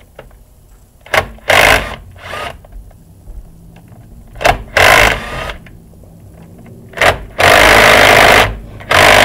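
Cordless impact driver with a socket running 12 mm bolts on a Kubota tractor engine in four short, loud bursts, each a blip on the trigger followed by a run of hammering; the third burst, about eight seconds in, is the longest at about a second.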